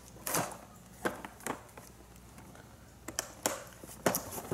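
Toy packaging being worked open by hand: about six sharp clicks and snaps at uneven intervals, with faint rustling between them.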